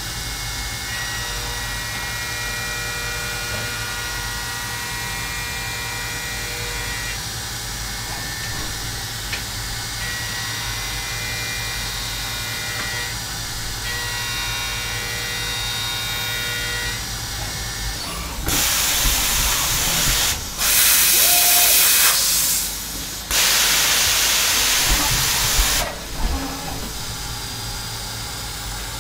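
CNC machining centre's spindle running a small deburring cutter at 7,200 rpm along aluminium edges: a steady machine whine with several pitched tones over a low hum. Roughly two-thirds of the way in come three loud hissing blasts, each two to three seconds long.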